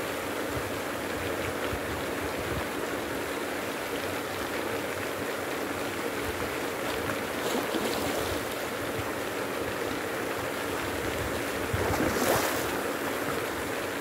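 Steady water-splashing noise of a pond aerator, with a hooked fish splashing at the surface about eight seconds in and again, louder, near the end.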